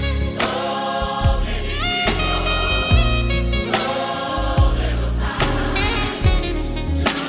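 Gospel choir singing with a solo voice over a band, with bass and drums keeping a steady beat.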